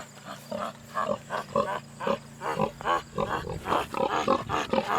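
Many Leghorn hens clucking, short calls overlapping in quick succession, over a low steady hum that fades out about three seconds in.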